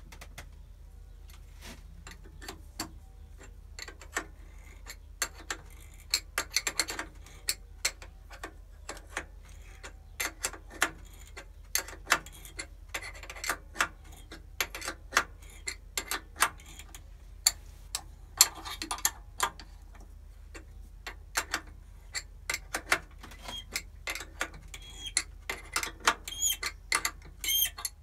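Irregular sharp metallic clicks and ticks of threads being cut by hand on a Myford lathe, as the threading tool and its lever knock against the work and the machine. They come sparsely at first, then thick and fast from about five seconds in, with a few short ringing clinks near the end. A steady low hum runs underneath.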